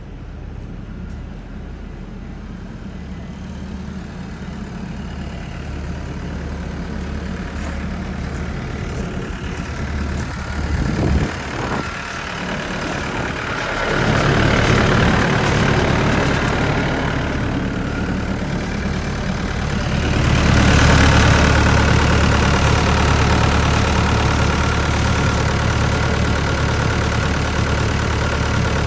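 Big tracked skid steer's engine running, growing louder as it is throttled up in steps, loudest about two-thirds of the way through.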